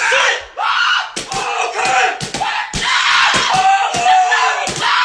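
A man screaming and yelling loudly without a break, with sharp thumps cutting in about twice a second.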